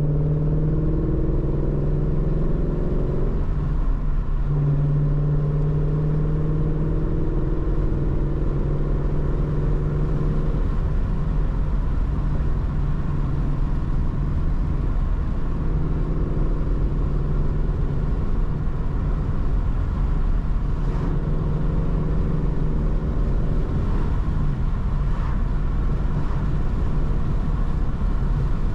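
Shelby GT350's 5.2-litre flat-plane-crank V8 running while driving, over steady low road rumble. Its pitch climbs gently several times, with a brief dip about four seconds in.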